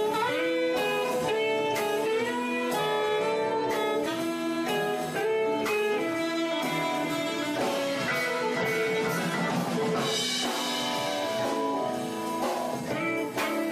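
Instrumental blues-jazz music: electric guitar and sustained melody notes over a drum kit, played by a small band.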